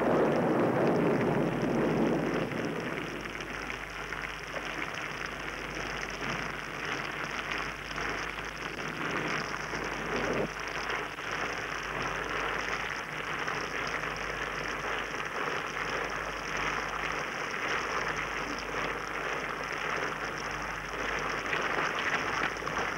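Steady rain falling, starting louder with a low rumble that fades over the first two seconds.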